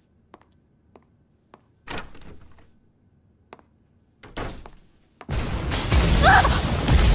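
Light footsteps, then a door thunking about two seconds in and again as it is opened just past four seconds. About five seconds in, a loud crash and rumble starts as a wall bursts apart in a spray of debris, and it carries on from there.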